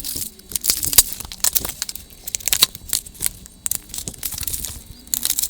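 Packaging crinkling and rustling with many sharp clicks and crackles, as the e-bike's boxed accessories are handled and unwrapped.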